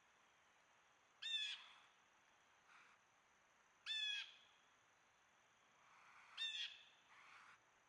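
Crow cawing: three loud, harsh caws about two and a half seconds apart, with fainter calls in between.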